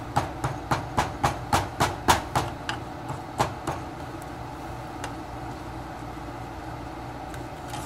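Wooden spoon knocking and scraping against a metal saucepan while stirring sugar as it melts into caramel, about four strokes a second, stopping about halfway through. A steady low hum runs underneath.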